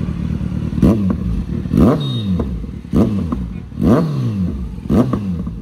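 Kawasaki Z900's inline four-cylinder engine through a newly fitted aftermarket performance exhaust, idling and then revved in five sharp throttle blips about once a second. Each blip rises fast and falls back to idle, and the bike is very loud.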